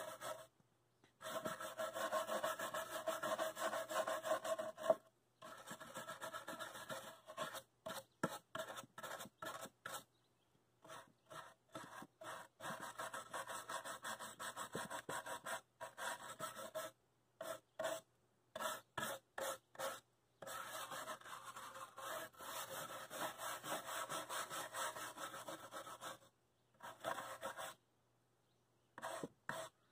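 Stiff bristle brush scrubbing loose char off a torch-burnt barn-wood chair back, with the grain, the wire-cleaning stage of a shou sugi ban finish. The scrubbing comes in runs of a few seconds, broken by short pauses and stretches of quick separate strokes.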